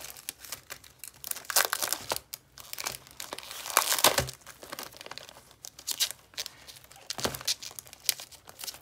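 Clear plastic wrapping crinkling and rustling in irregular bursts as hands pull it off a stack of cotton watercolour paper, loudest about four seconds in.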